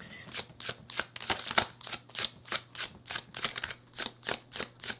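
A deck of tarot cards being shuffled by hand: an even run of short, soft card slaps, about four a second.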